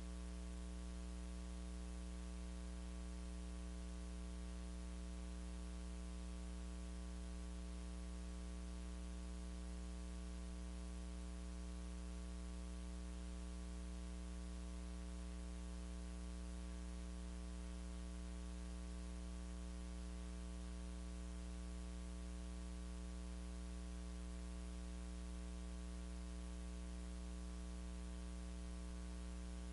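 Steady electrical mains hum, a low drone with a buzz of higher overtones over a constant hiss, with no singing or instruments audible. It is the sign of a dead or faulty audio feed picking up electrical hum instead of the live sound.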